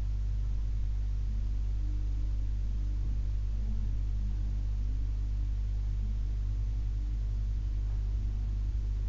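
Steady low electrical hum in a quiet room, with no other sound standing out.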